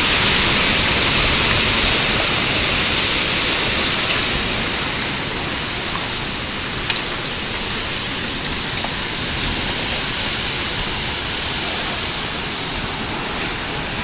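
Heavy rain and gusting wind of a severe storm, a steady hiss with a few faint scattered ticks.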